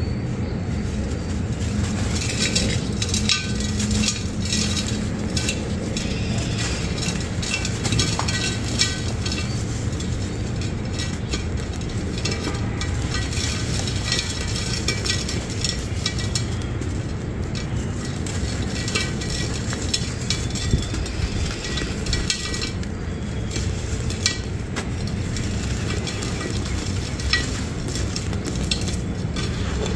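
Dry, reused sand-cement block being crushed and crumbled by hand into a terracotta clay pot. It makes a continuous gritty crackling and crunching as grains and chunks break and pour into the pot. A steady low rumble runs underneath.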